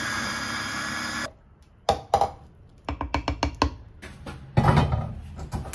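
Electric mini food chopper motor running steadily as it purées tomato, cutting off abruptly after about a second. Then a series of sharp clicks and knocks as the motor head and blade are taken off the glass bowl, the loudest about three-quarters of the way through.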